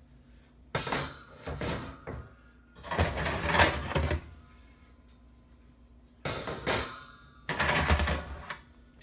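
Metal oven racks of a GE gas range being slid out along their side supports and handled, scraping and clattering in four bursts of about a second each.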